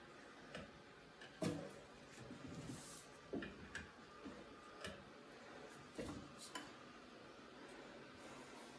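Plastic sink drain trap and corrugated drain hose being handled and worked loose by gloved hands: scattered faint clicks and knocks, the loudest about a second and a half in.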